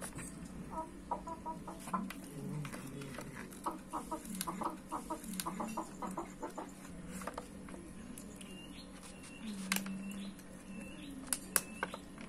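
Cats chewing and tearing at cooked chicken on a metal tray, with sharp clicks of teeth and meat against the tray. Low clucking calls and quick pulsed sounds run through it, with a few short high chirps near the end.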